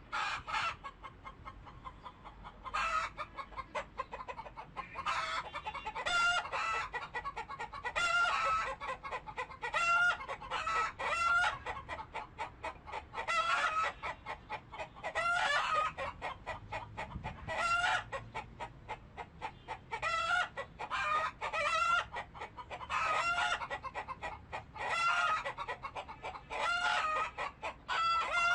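Chickens clucking and cackling: a run of short pitched calls, with bursts recurring every couple of seconds.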